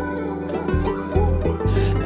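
Background music: plucked-string notes over a deep bass line.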